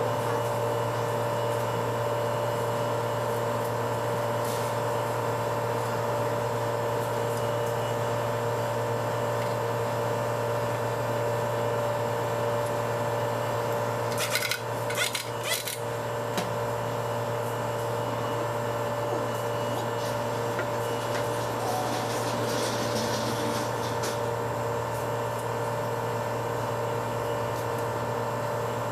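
Steady mechanical hum, with a short cluster of clicks and knocks about halfway through as metal parts are handled on an automatic transaxle's valve body.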